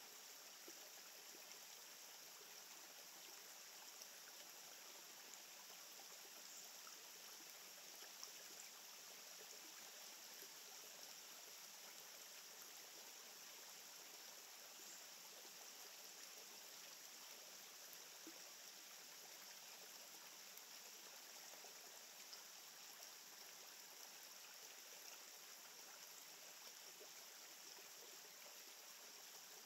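Near silence: a faint, steady rushing outdoor ambience with no distinct events.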